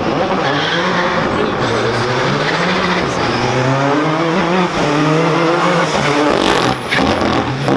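Rally car engine at high revs under hard acceleration, its note climbing and dropping several times as it changes gear. A few sharp cracks come near the end.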